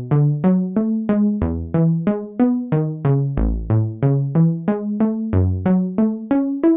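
Sequential Prophet 6 analog synthesizer playing a bass patch: a fast line of short, plucky notes, about three to four a second, each starting bright and quickly closing down as the filter envelope falls, with a few deeper notes among them.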